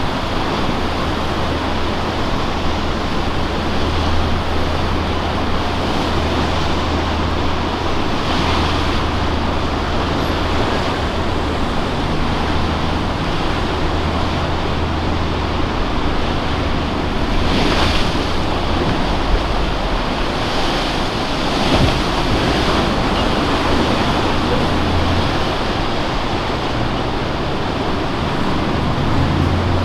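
Ocean surf breaking on a river bar, rising in swells now and then, with wind on the microphone. Under it runs a steady low hum that fades out for a few seconds past the middle and returns near the end.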